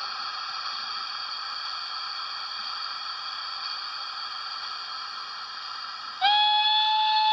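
Trix E 991 model steam locomotive's sound decoder giving a steady hiss of steam through its small speaker. About six seconds in, its steam whistle starts loud and holds one note.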